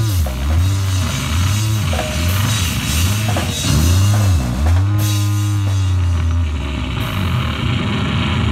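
Live rock band playing loud: an electric guitar with low notes that swoop up and down in pitch over a drum kit, then a held low note about five seconds in.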